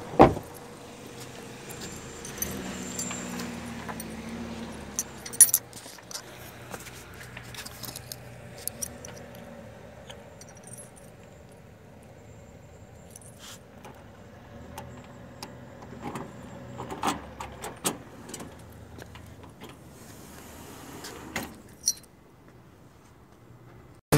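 Keys jangling and clicking as a key is worked into the lock of a metal door, among scattered sharp clicks and knocks; the loudest is a sharp knock just after the start.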